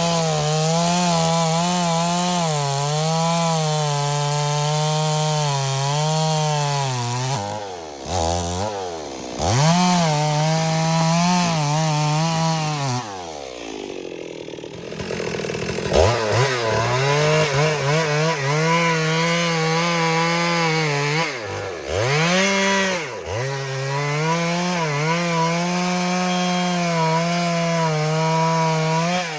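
Stihl MS 382 two-stroke chainsaw with a 25-inch bar running at full throttle through wood, its engine note wavering under the load of the cut. The revs drop off a few times, and about halfway through the saw falls to a low idle for a couple of seconds before revving back up.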